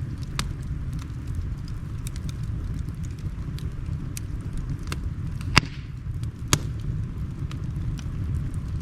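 Wood fire crackling, with scattered sharp clicks and two louder pops a second apart in the second half, over a steady low rush of flowing river water.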